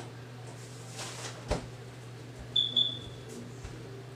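Two short, high-pitched electronic beeps in quick succession about two and a half seconds in, over a steady low electrical hum, with a light knock about a second and a half in.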